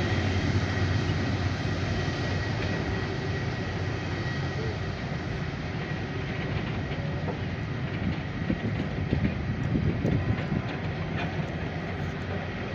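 Jet engines of an Airbus A330-200 freighter running: a steady rumble with a thin high whine, slowly fading.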